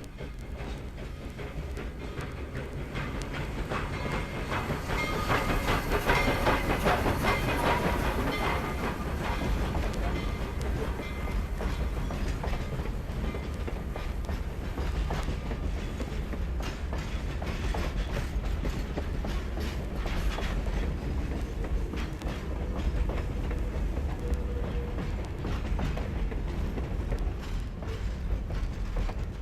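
A train running past on the rails, its wheels clicking over the rail joints. The sound swells to its loudest about six to eight seconds in, then runs on steadily.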